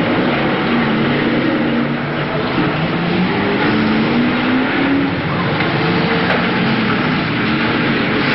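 A pack of BriSCA Formula 1 stock cars racing, several engines running hard at once, their notes rising and falling as the cars lap the track.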